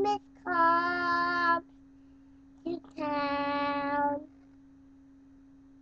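Young boy, about three years old, singing two long, steady held notes, one after the other with a short gap between them, over a faint steady hum.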